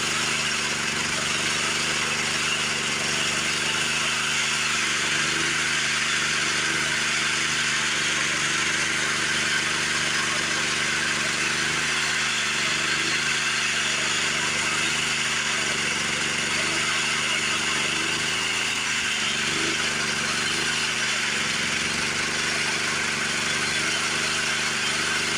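Homemade sawmill running steadily under power, its engine's drone under a broad hiss of the saw cutting a log.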